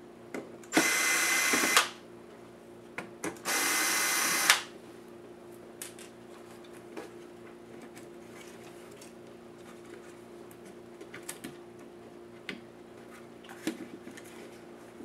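Cordless electric screwdriver running in two bursts of about a second each, a couple of seconds apart, backing out small screws inside a netbook. Faint clicks and taps follow as the loosened parts are handled.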